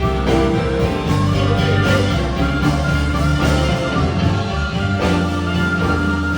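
Live band playing an instrumental passage of a rock/blues song: bass, guitar and drums, with no vocals.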